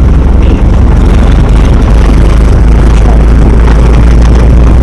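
GAZ-67 jeep driving along, its four-cylinder side-valve engine running with a steady low rumble, heard from inside the open-topped cab.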